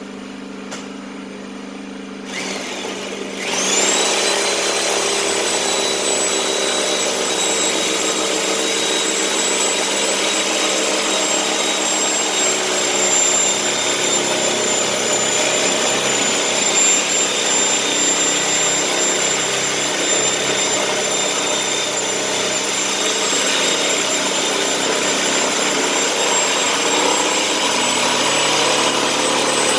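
Electric power tool spinning up with a rising whine about three seconds in, then running steadily with a high whine as it cuts through the welded tub of a Candy washing machine.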